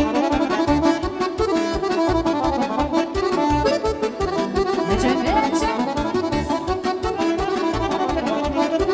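Instrumental Romanian folk dance music: accordion and saxophone play a lively tune over a steady bass beat.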